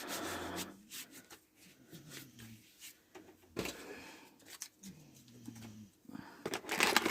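Rustling and crinkling of plastic packaging as items are handled and pulled from a survival kit, with a sharp rustle about halfway through and a louder run of crinkling near the end. A few soft, low, falling murmurs from a woman's voice come in between.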